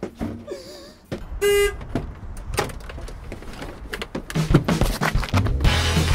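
A short, loud horn toot about a second and a half in, followed by knocks and clatter as a van door is opened. Background music with a bass line comes in about four and a half seconds in.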